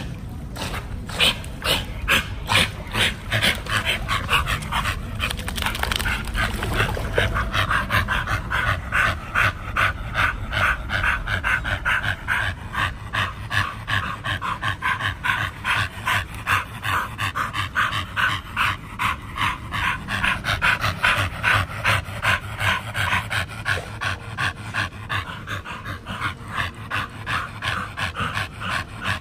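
Pit bull panting rapidly and rhythmically, about three breaths a second.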